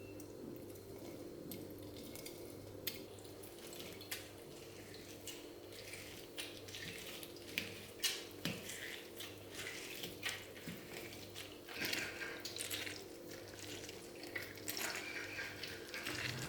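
Water splashing and dripping at a sink, with light clicks and clinks of dishes or utensils, busier in the second half, over a steady low appliance hum.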